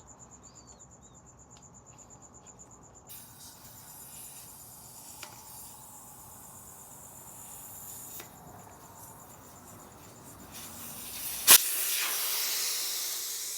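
Air hissing out of a Honda Monkey's rear tire through the valve stem as the valve core is unscrewed. A faint hiss starts and slowly grows, then near the end a sharp click is followed by a much louder rush of escaping air as the tire deflates.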